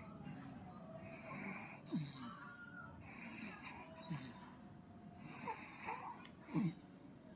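Baby snoring: three noisy, rasping breaths about two seconds apart.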